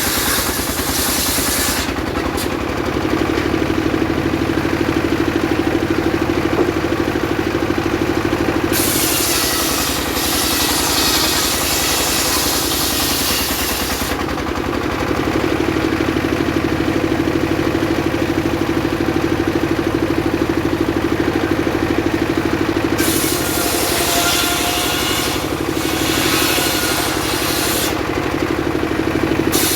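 Engine-driven circular saw running steadily, its engine a constant drone. Three times the sound turns harsher and hissier as the blade cuts through sengon wood: at the start, from about 9 to 14 seconds in, and again from about 23 seconds.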